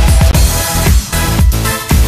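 Background electronic dance music with a steady, heavy bass beat.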